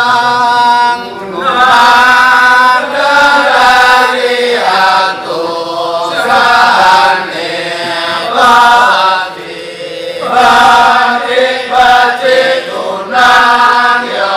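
Balinese kecak chant: voices singing in long held phrases of about a second each, with short breaks between them, over a steady low held tone in the first half.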